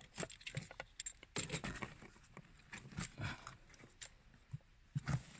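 Scattered light clicks, taps and scrapes of hands handling a diagnostic plug and its lead around the car's door and footwell trim.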